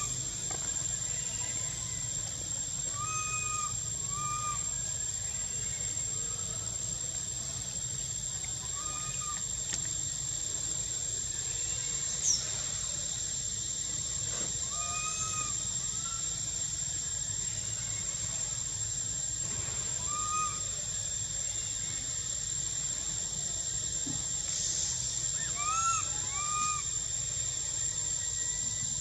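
Short, arching whistled animal calls, often in pairs, repeat every few seconds over a steady high-pitched whine and a low background rumble.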